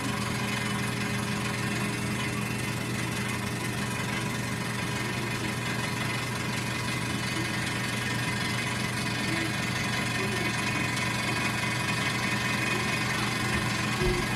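Hair dryer running steadily: a motor hum under a constant rush of air.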